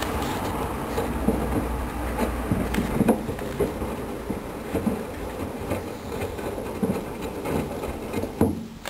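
Hoover Dynamic Wash 10+ front-loading washing machine turning its drum during the mini-load wash, with a steady rumble and irregular knocks; it stops sharply near the end.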